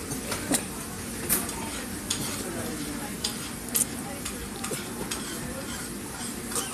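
Restaurant room noise: a steady hiss with scattered short, sharp clicks every second or so.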